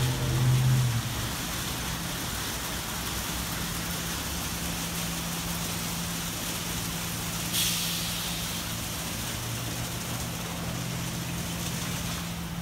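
Ryko SoftGloss MAXX rollover car wash gantry running: a steady hum under a constant hiss, with a short sharp hiss about seven and a half seconds in.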